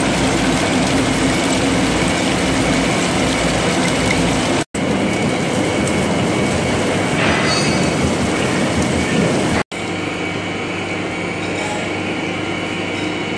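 Large boring lathe trepanning a deep bore through a rotating steel workpiece: a steady, loud machining rumble with coolant hiss. It cuts off abruptly twice, about five and ten seconds in, and is a little quieter after the second break.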